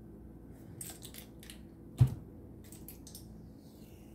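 Hands handling a stainless-steel countertop air-fryer oven, with fingernails scratching and picking at tape stuck on its metal top, making light scattered clicks and scratches. One sharp knock against the oven's body about two seconds in.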